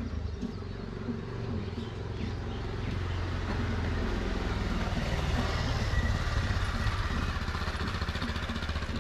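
Motorcycle engine passing close by and riding away down a dirt road, growing louder to a peak about six seconds in, then easing off as it pulls away.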